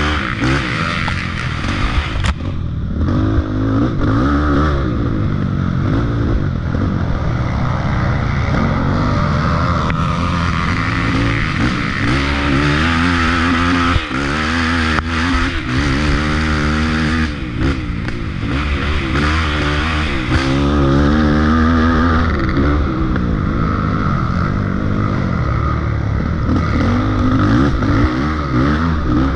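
Racing quad's engine under hard throttle, revving up and easing off over and over, its pitch rising and falling every second or two, with a brief throttle lift about two seconds in.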